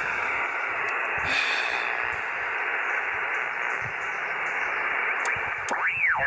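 Shortwave ham transceiver's speaker hissing with band noise and static on single sideband. Near the end, a whistle rises and falls as a station's signal comes through.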